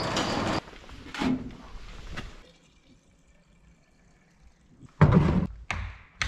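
A steel roller shutter door rattling as it rolls up, stopping about half a second in. After a couple of faint knocks and a quiet stretch, heavy thuds near the end as fuel cans are set down on a pickup's bed liner.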